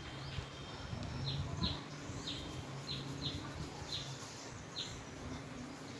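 A small bird chirping in the background: about eight short, high, falling chirps, irregularly spaced and sometimes in quick pairs.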